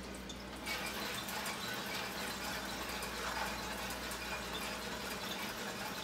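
Water-powered 1967 Kenner Jet Action Easy Wash toy dishwasher running with its lid off. About a second in, faucet water rushes on and sprays steadily inside it, driving the dish rack round.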